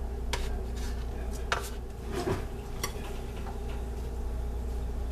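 Dishes and cutlery clinking and clattering, several separate knocks in the first three seconds, over a steady low hum.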